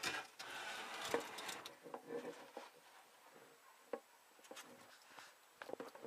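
Rustling for about the first second and a half, then scattered light taps and clicks.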